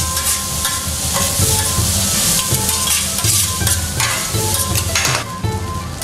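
Garlic fried rice sizzling on a hot teppanyaki griddle while metal spatulas scrape and stir it across the steel, with a sharper scrape about five seconds in.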